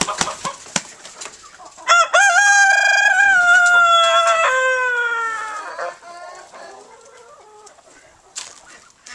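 A rooster crows once: a single long call of about four seconds that drops in pitch near its end. A few short clucks come before it.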